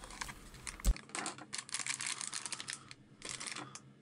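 Plastic storage tubs of spare rubber drive belts being set down and handled. A knock comes about a second in, then a run of quick plastic clicks and rattles, with another short burst near the end.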